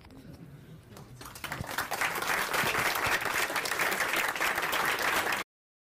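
Audience applauding. It starts with a few claps about a second in, swells to full applause, then cuts off suddenly near the end.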